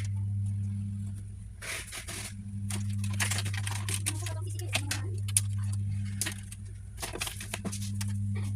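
A steady low electrical hum, with scattered clicks, knocks and short rustles of handling.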